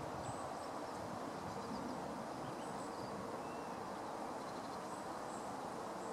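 Outdoor ambience: steady background noise with a faint constant hum, and a few brief, faint high chirps from small birds scattered through it.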